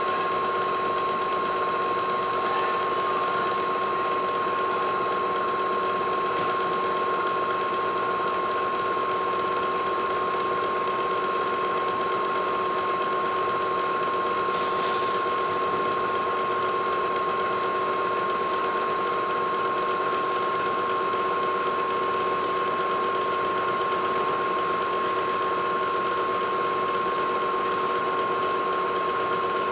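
Lagun vertical milling machine running steadily at 2500 RPM on power feed, its 1/4-inch end mill cutting a slot through plastic: a constant machine whine of several held tones over a hiss of cutting. There is one faint tick about halfway through.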